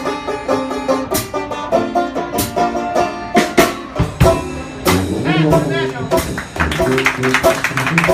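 A live band playing a tune, with many quick, sharply struck notes.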